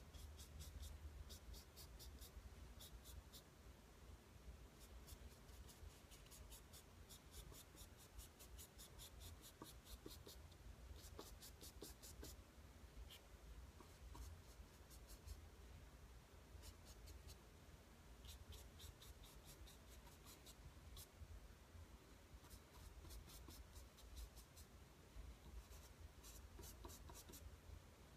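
Faint scratching of a paintbrush on canvas, coming in clusters of quick short strokes, over a low steady rumble.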